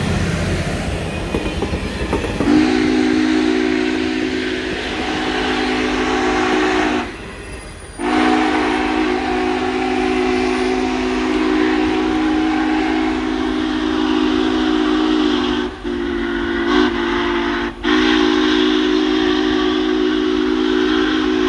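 Union Pacific 4014 Big Boy steam locomotive's chime steam whistle blowing a series of long blasts with short breaks between them, the longest about eight seconds, over the running noise of the train. The first couple of seconds hold only the train's running noise, before the whistle opens.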